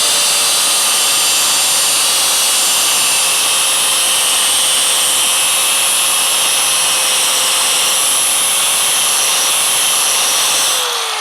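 Electric grinder running at steady speed against a piece of iron for a spark test: a constant whine under the hiss of metal being ground. Near the end it is switched off and the whine falls as it winds down.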